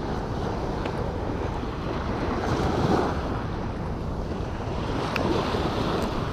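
Small surf waves breaking and washing up a sand beach, swelling and easing, with wind buffeting the microphone.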